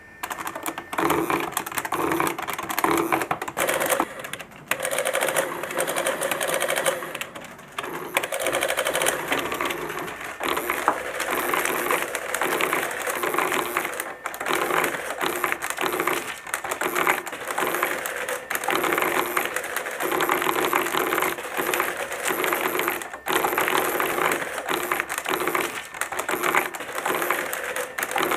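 Electric printing calculator clattering as its keys are punched and its print mechanism prints entries onto the paper tape: quick runs of mechanical clicks with short breaks between them.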